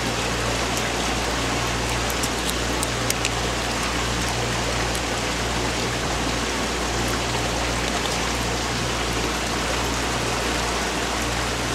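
A steady, even hiss with a low hum under it, and a few faint clicks between about one and three seconds in.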